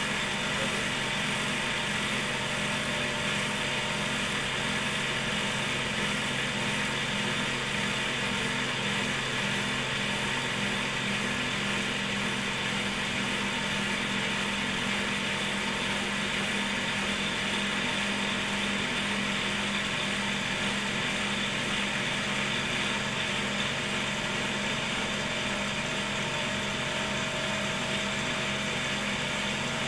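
Cotton candy machine running steadily: its DC motor spins the heated brass spinner head with a constant whir and low hum.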